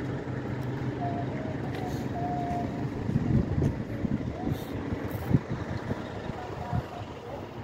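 Box truck's engine running with a steady low hum; from about three seconds in, uneven low rumbling drowns it out.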